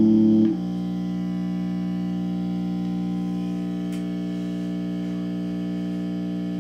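Orange AD30 valve guitar amp idling with a loud, steady buzzing hum and no notes played. The hum drops in level about half a second in, then holds steady. The owner puts the buzz down to its aged original Golden Dragon valves, due for a retube.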